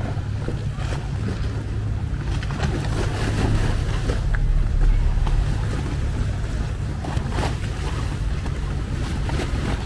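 Boat engine running with a steady low drone under a wash of water and wind noise, swelling slightly around the middle.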